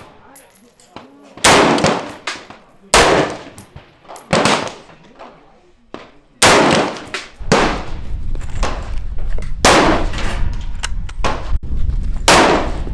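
Gunshots on an outdoor firing line, an AR-style rifle among them: about six loud shots, a second and a half to three seconds apart, each with a long ringing tail. About halfway through a steady low rumble comes in underneath.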